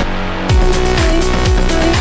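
Electronic dance music with a steady kick drum about twice a second. The high end drops out briefly at the start, and the full beat comes back about half a second in.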